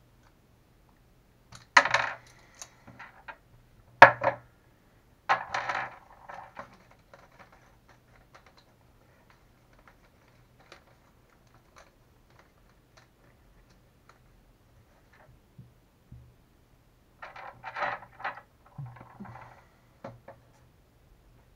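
Small metal shock parts and hand tools clinking and clattering against each other and the hard bench top while a Traxxas Revo 3.3 shock is taken apart and rebuilt. A few sharp clatters come in the first six seconds, then only faint ticks, then another run of clinks near the end.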